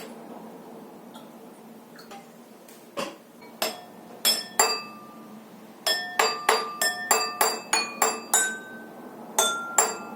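Water-tuned drinking glasses struck one at a time, each ringing briefly at its own pitch and picking out a tune. A few spaced notes come first, then a quicker run of about a dozen notes.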